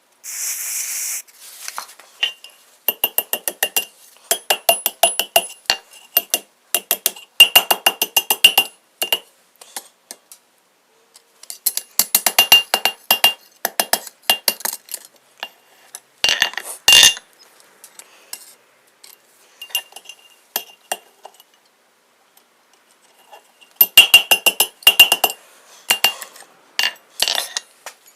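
Hand hammer striking a hot steel bar on an anvil in several quick runs of light blows, about four or five a second, with the anvil ringing at each strike and pauses between the runs: forming the second curl of a forged S hook. A short hiss at the very start.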